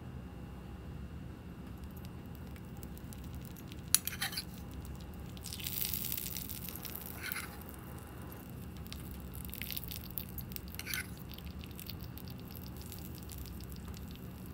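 Hot tempering oil with cumin seeds and dried red chillies poured onto dal: a sharp click about four seconds in, then a brief sizzle lasting about two seconds, followed by a few faint crackles.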